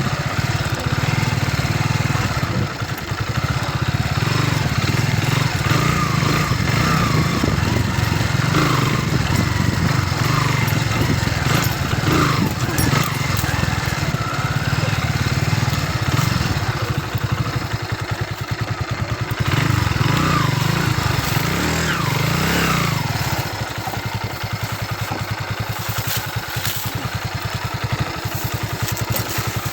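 Kawasaki W175 TR's single-cylinder engine running as the motorcycle is ridden, a steady low rumble that eases off a little about two-thirds of the way through.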